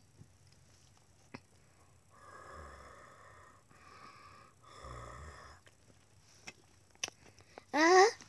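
A person making nonverbal vocal sounds: three held, wheezy droning tones, then a loud wavering squeal near the end.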